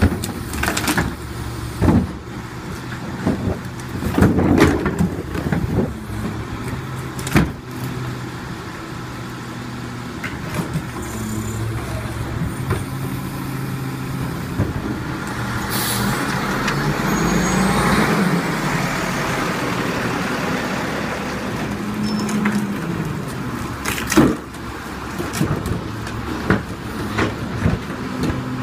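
Diesel rear-loader garbage truck, a Leach body on a Crane Carrier chassis, running in place while plastic garbage carts bang against the back of the hopper. Partway through, the engine speeds up and then falls back as the hydraulic cart tipper lifts and dumps a cart.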